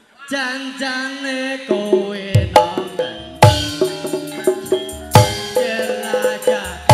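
Javanese gamelan music accompanying a wayang kulit show. A voice sings briefly, then about two seconds in the ensemble enters with ringing pitched metal tones and sharp, loud drum strokes.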